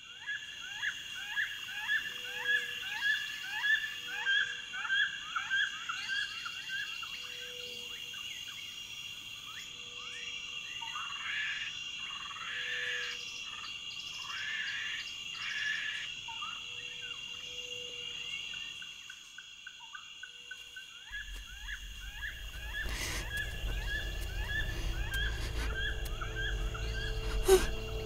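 Forest ambience: a steady high insect drone with a regular series of short chirping calls. About two-thirds of the way through, a low rumble comes in and slowly builds.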